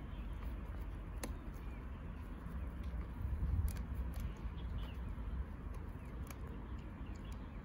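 Golden retriever gnawing on a wooden stick, with a few scattered sharp clicks and cracks of wood between its teeth over a low steady rumble.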